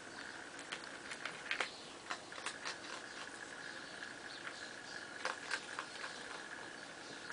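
A cat and a miniature pinscher play-wrestling: irregular light taps, clicks and scuffles of paws and claws, several in quick clusters.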